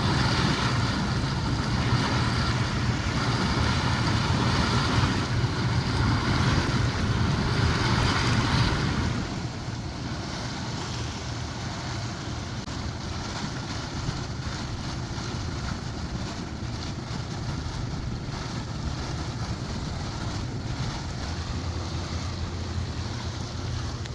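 Steady low drone of a boat engine under water rushing past the hull and wind buffeting the microphone; the hiss of wind and water eases about nine seconds in while the drone carries on.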